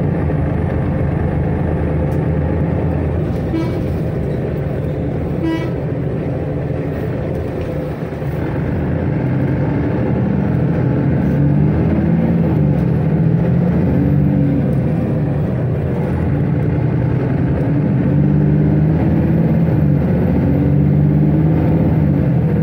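Mercedes-Benz Citaro city bus heard from inside while under way: a steady engine and drivetrain drone whose pitch rises and falls as the bus speeds up and slows. Two short beeps sound a few seconds in.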